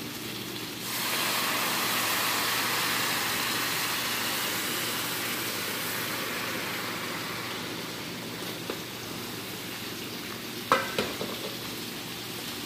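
Broth poured into a hot pan of sautéed mushrooms and onions: a loud sizzle starts suddenly about a second in as the liquid hits the pan, then slowly dies down. A sharp knock comes near the end.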